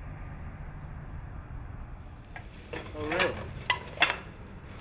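A plastic bag rustling as a man rummages at a plastic recycling bin, with two sharp clinks late on and a short wordless vocal sound just before them, over a steady low outdoor rumble.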